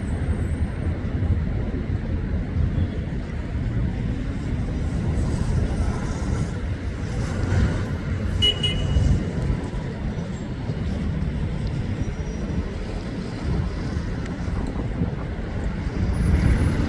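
Road traffic at a busy junction: a steady low rumble of passing vehicles, with a brief high-pitched beep about eight and a half seconds in.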